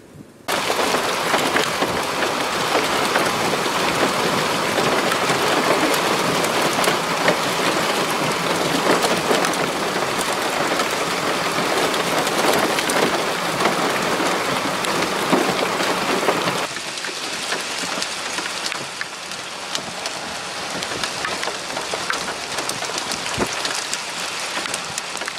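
Heavy rain mixed with small hail pelting wet pavement: a dense, steady hiss that starts suddenly about half a second in, with scattered sharp ticks of hailstones. About two-thirds of the way through it drops to a lower level.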